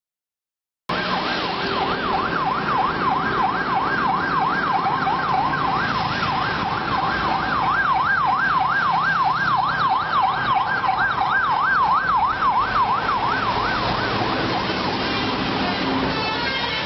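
Electronic siren yelping, its pitch sweeping up and down about three times a second, over steady road and engine noise. It starts about a second in and stops a few seconds before the end.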